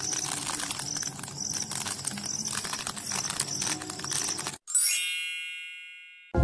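Insects chirping, a high chirp repeating steadily. About four and a half seconds in it cuts off and a bright chime rings once and slowly fades.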